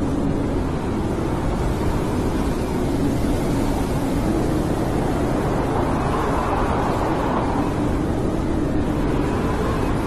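Snowstorm wind blowing steadily with a deep rumble and a low moaning tone. A higher tone swells about six seconds in and fades again.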